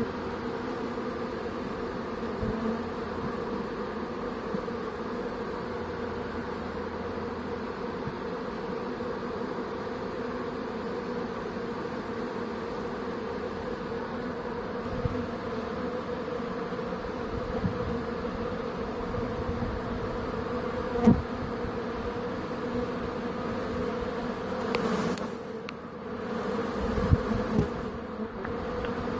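Honeybee swarm buzzing as thousands of bees fly in to settle in a bait box, a steady, even hum. A single sharp click about two-thirds of the way through.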